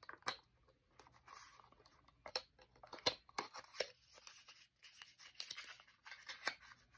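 Small cardboard ink box being handled: faint rustling and scraping with a run of light knocks, the sharpest about three seconds in.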